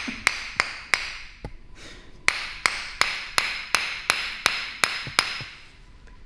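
Chiropractor's hammer-type percussive adjusting tool striking in quick repeated taps, about three a second, each with a short ring. The taps pause for about a second near the start, then run on again.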